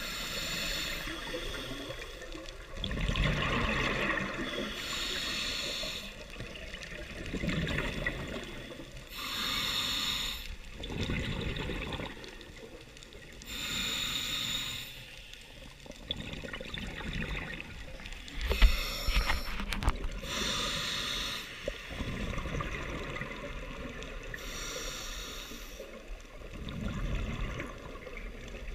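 A scuba diver breathing underwater through a regulator: regular breaths about every four to five seconds, a hiss on each breath and a rumble of bubbles on each exhale.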